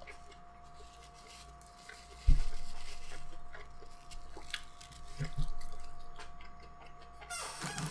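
A person chewing food with the mouth closed and rubbing a paper napkin between the fingers. There is a dull thump about two seconds in and a couple of softer knocks about five seconds in.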